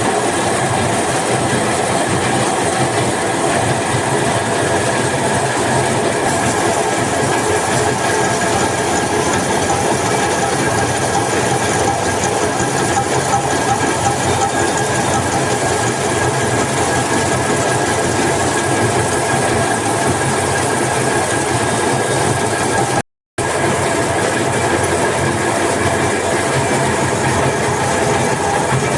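A workshop machine running steadily and loudly, a dense mechanical noise with a few steady whining tones through it. The sound drops out for a moment about 23 seconds in, then carries on unchanged.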